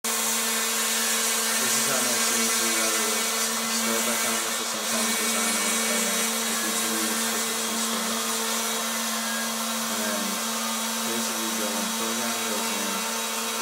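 Router spindle motor on a homemade CNC router running steadily at constant speed, a continuous motor hum with loud high hiss.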